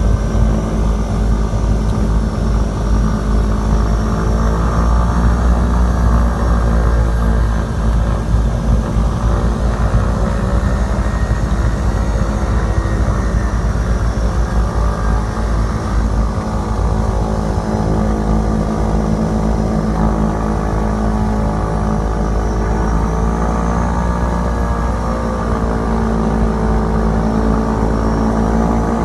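Engines and propellers of a small propeller airliner heard from inside the cabin: a loud, steady drone with propeller tones that waver a little in pitch now and then.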